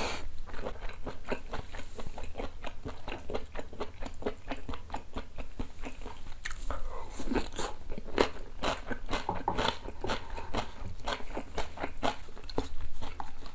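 A person chewing food close to the microphone: a steady run of short wet clicks, several a second, as the mouthful is worked.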